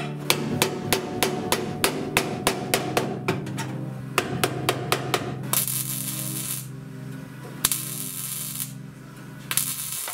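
Hammer driving a cold chisel into steel car-body sheet metal, quick blows about four a second. Then three bursts of MIG welding crackle, each about a second long, over background music.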